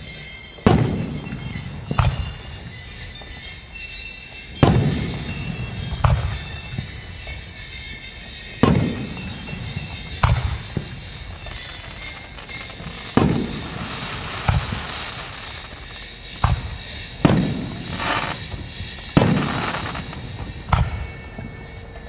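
Aerial firework shells bursting overhead: about a dozen sharp booms at irregular intervals of one to three seconds, each trailing off in a rolling echo.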